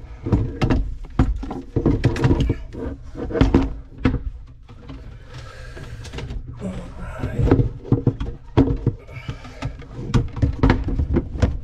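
Repeated knocks, clunks and scraping as plumbing parts are handled and pushed into place inside a cramped under-sink cabinet, with a stretch of rustling and scraping around the middle.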